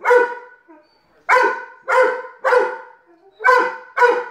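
A dog barking: six short, sharp barks in about four seconds, some coming in quick pairs.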